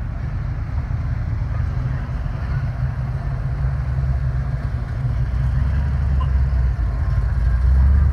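Classic cars' engines rumbling low and steady as they roll slowly past: a red early-1960s sedan, then a black early-1950s Ford V8 pickup whose engine grows louder toward the end as it draws near.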